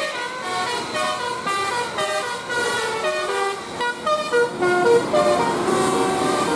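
Telolet bus horn playing a quick melody: a run of short honked notes that step up and down in pitch, several sounding together.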